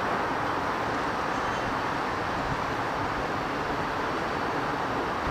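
Amtrak Northeast Regional train, hauled by an AEM-7AC electric locomotive, running away down the line at about 65 mph: a steady wash of wheel and rail noise, slowly fading.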